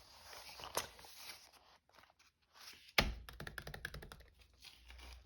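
Papers rustling and being handled, then a sharp thump about three seconds in, followed by a quick run of light clicks and rattles.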